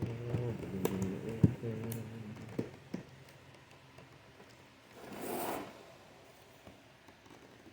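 Packaging being worked open by hand. There is a low hum with sharp plastic clicks and taps over the first three seconds, then a short ripping tear about five seconds in.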